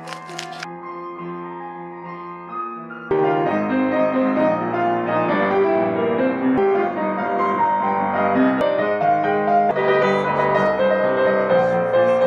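Solo piano playing, a practice in the room, with a pepper grinder crunching briefly at the very start. About three seconds in, the piano music turns suddenly louder and fuller.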